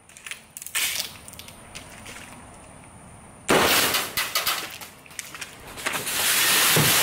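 Plastic airsoft BBs, shot straight up, raining back down: a few scattered clicks in the first two seconds, then a sudden dense pattering of pellets striking roof tiles, leaves and ground about three and a half seconds in that thins out, and a second steady, heavy pattering building near the end.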